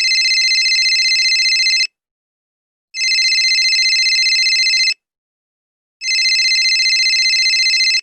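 Telephone ringing: three rings of about two seconds each, a second apart, each a high, fast-warbling electronic trill.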